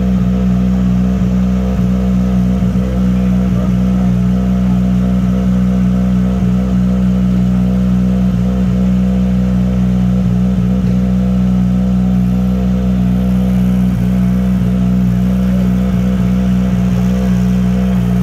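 M-Sport Ford Puma Rally1 car's 1.6-litre turbocharged four-cylinder engine idling steadily at a constant pitch.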